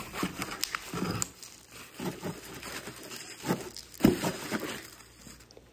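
Bubble wrap crinkling and rustling as a wrapped rifle stock is handled and lifted out of its cardboard box, with a sharp knock about four seconds in.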